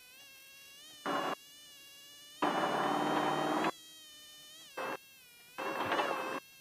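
Off-road race car's engine heard as a steady buzzing whine whose pitch wavers a little, broken four times by short, loud bursts of rushing noise.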